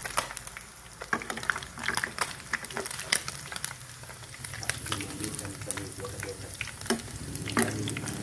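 Fish sizzling and crackling in hot cooking oil in a frying pan, with a metal mesh strainer clinking and scraping against the pan as it scoops the fried selayang (scad) out of the oil.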